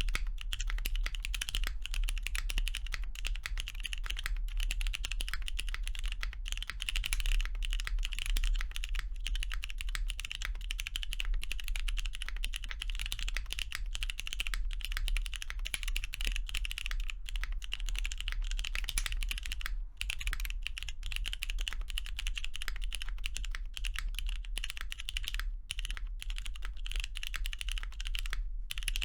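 Continuous fast typing on a custom mechanical keyboard fitted with Cherry MX2A Brown tactile switches, lubed and filmed, on a carbon fibre plate, with GMK doubleshot ABS keycaps. The keystrokes run densely, with a few very short pauses.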